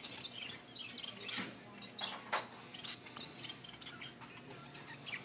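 Small finches chirping: many short, high calls in quick succession, with a few soft scratchy taps mixed in.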